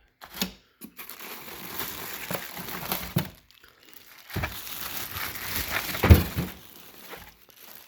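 Packaging crinkling and rustling as parts are handled, with one louder knock about six seconds in.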